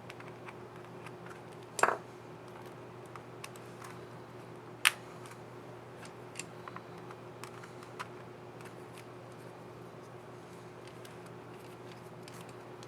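Small plastic clicks from an HP Envy 15 laptop keycap and its scissor mechanism being fitted and pressed into the keyboard, with two sharper snaps about two and five seconds in. A steady low hum runs underneath.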